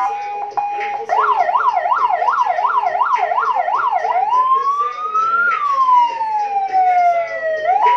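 Electronic siren running through its tones: a brief steady note, then a fast up-and-down yelp for about three seconds, then a slow wail that rises and then falls.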